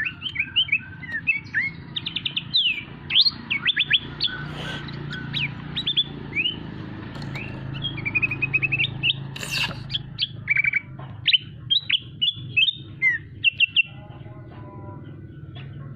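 A small songbird chirping busily: rapid runs of short, sharp notes that sweep quickly down in pitch, with a few brief pauses, over a steady low hum.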